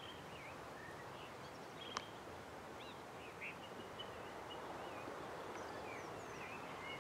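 Faint birdsong: scattered short chirps and warbling calls over a steady open-air background hush, with a single sharp click about two seconds in.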